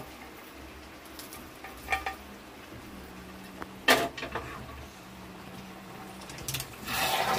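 Metal clinks against a steel kadhai as cooked bottle gourd is tipped in from a pressure cooker, with one sharp clank about four seconds in. Near the end, a spoon starts working through the pan and a noise of stirring builds.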